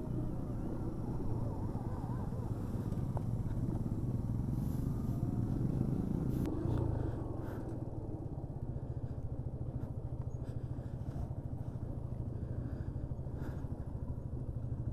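Motorcycle engine running steadily as the bike rides over a rough, broken road. The engine sound eases to a lower level about seven seconds in.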